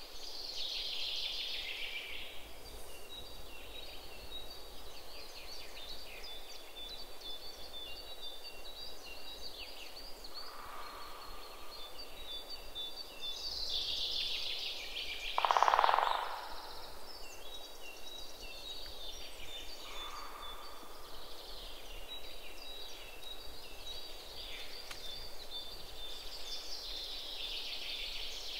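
Micro-servos of a snake robot whirring in short, high-pitched chirps and whines as it slithers, swelling in waves about every 13 seconds. A brief, louder, lower sound comes about halfway through.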